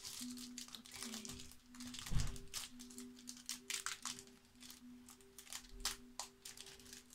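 Foil trading-card pack wrapper crinkling and tearing in short crackles as it is pulled open by hand; the wrapper is really stiff. A soft low thump comes about two seconds in.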